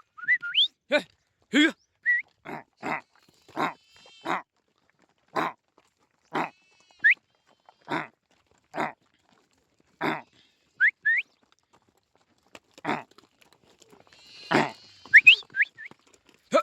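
About twenty very short, clipped buffalo calls edited into a choppy sound-effect sequence, each cut off abruptly with dead silence between, a few of them quick rising squeaks.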